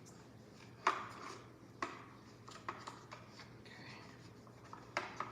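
Hands handling the plastic parts of a robot vacuum: a few sharp clicks and knocks about a second apart, with light scraping between them, over a faint steady low hum.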